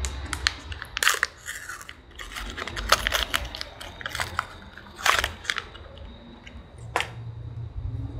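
Irregular crackles and clicks of an H4 headlight bulb's plastic-and-cardboard packaging being handled close to the microphone, with a few sharper snaps among them.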